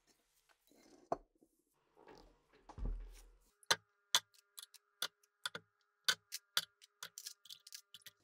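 Rusty metal parts handled on a workbench, with a light clink and then a heavier thud, followed by a quick, irregular run of sharp clinks as small rusty steel parts are dropped into a stainless steel tray of water, the tray ringing faintly after the strikes.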